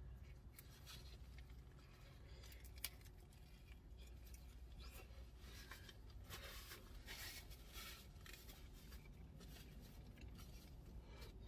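Near silence with faint eating sounds: chewing a crunchy thin-crust pizza melt and handling a paper napkin. A single sharper click comes about three seconds in.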